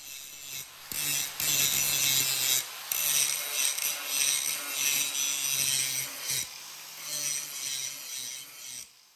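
Makita 4.5-inch angle grinder grinding the rough jigsaw-cut edges of a quarter-inch silicon bronze plate, in uneven passes that rise and fall. It fades out near the end.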